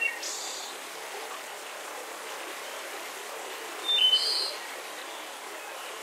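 Steady rushing of a forest waterfall with bird chirps over it: a brief call right at the start and a louder chirp about four seconds in.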